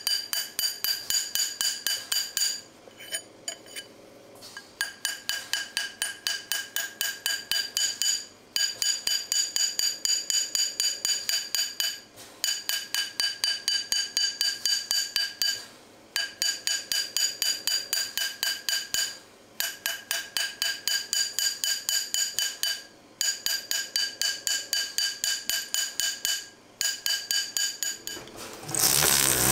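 Rapid, even hammer blows on an 18ct gold ring seated on a steel ring mandrel, several a second, each with a bright metallic ring. The hammering stops for a moment every three to four seconds as the ring is turned on the mandrel. Near the end a rotary tool's motor starts up.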